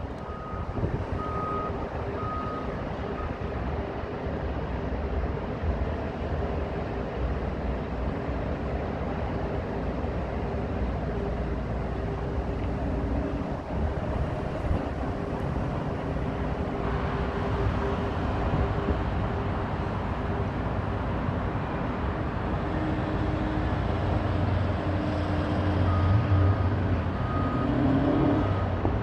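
Steady outdoor rumble of traffic and industrial machinery, with a vehicle's reversing beeper sounding in short repeated beeps near the start and again near the end. Near the end a road vehicle goes by, its engine rising in pitch.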